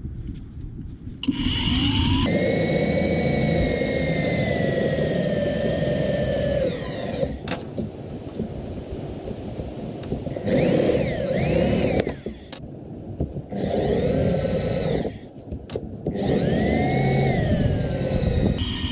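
Electric drill running in four bursts in wood, the first about six seconds long, its pitch dropping during each run as the motor takes load.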